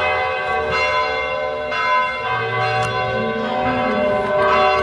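Church bells ringing, struck roughly once a second, their tones overlapping and hanging on between strikes; the bell is sounding the hour.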